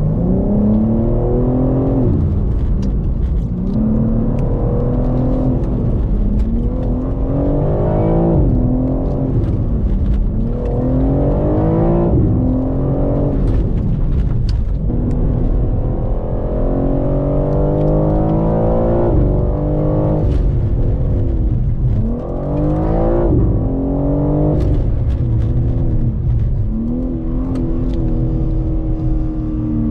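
BMW M3 Competition's twin-turbo straight-six heard from inside the cabin, accelerating in repeated rising pulls through the gears, its pitch dropping at each shift, then falling away as the car brakes. These are acceleration-and-braking runs to bed in new brake discs and pads.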